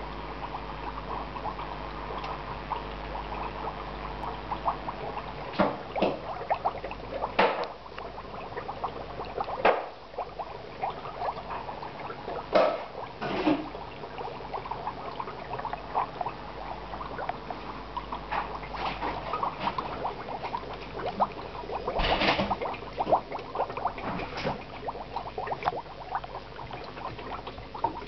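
Dry ice bubbling vigorously in soapy dishwater: a dense, steady crackle of gas bubbling and foam popping, broken by several louder sudden splashes.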